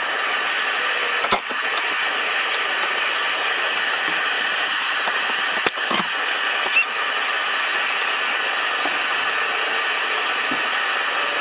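A steady hiss with a few light knocks as an automotive radiator is lifted out of a truck's engine bay: one sharp knock about a second in, and a small cluster of knocks around six seconds in.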